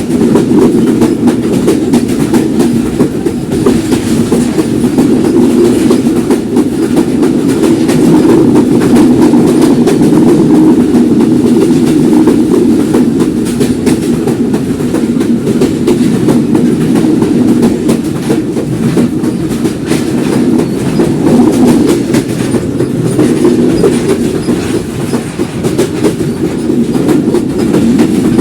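Simanta Express passenger train running, its wheels rumbling loudly and steadily on the rails, with a clickety-clack of clicks over the rail joints.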